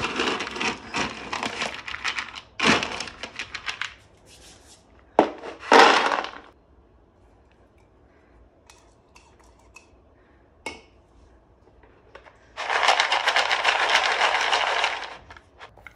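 Dry dog kibble rattling as it is scooped from a plastic storage bin and poured into a bowl, with one louder clatter. After a quiet stretch with a few small clicks comes about two and a half seconds of kibble rattling in the bowl as it is shaken, near the end.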